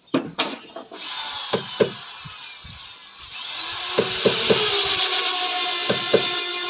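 A power woodworking tool running steadily on timber, a whirring hiss that grows louder about three seconds in, with a few knocks and brief voices.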